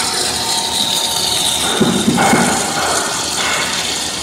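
Corn puff snack extruder line running: steady machine noise with a high whine. A brief louder low rumble comes about two seconds in.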